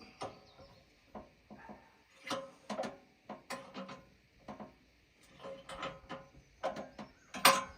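A string of irregular wooden and metal knocks and clunks as the birch log is turned on the sawmill deck, the loudest near the end.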